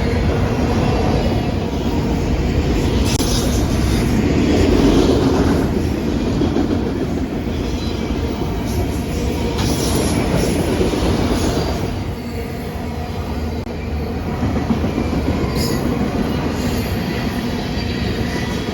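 Train rolling past: a steady rumble of steel wheels on rail, with brief higher squeals from the wheels now and then.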